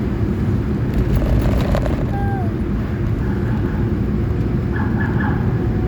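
Large vehicle's engine running with a steady low rumble, and a few faint short tones about two seconds in and again near the end.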